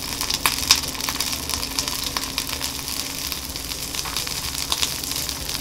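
Starch-coated oysters sizzling in hot oil in a stainless steel frying pan, searing over medium heat to brown. A steady sizzle with scattered pops and crackles.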